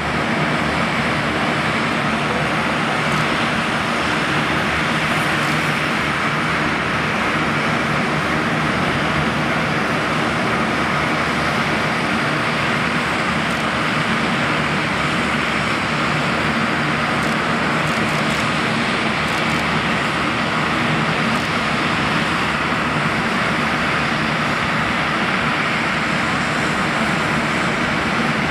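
Embraer 175's twin GE CF34-8E turbofan engines on approach and landing: a steady rushing jet noise that holds at one level throughout.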